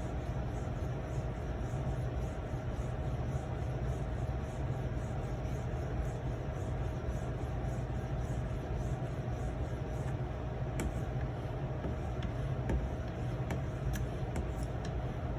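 A steady low hum with a constant tone runs under faint, evenly repeated scraping of an Edge Pro 4000 grit stone stroked along a knife edge. After about ten seconds the scraping gives way to a few light clicks.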